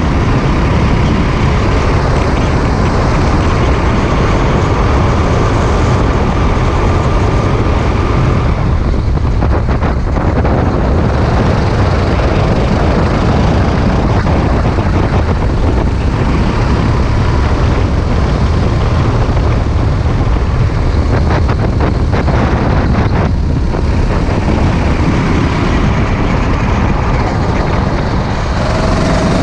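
Sodi RT8 kart's single-cylinder four-stroke engine at racing speed, heard onboard. The engine note climbs and holds, falls away about eight seconds in as the driver lifts for a corner, builds again, and dips once more about three quarters of the way through.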